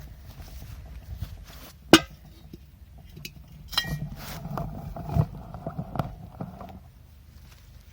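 A metal kettle and its lid being handled and carried, clinking and knocking, with one sharp knock about two seconds in and a brief metallic ring later on.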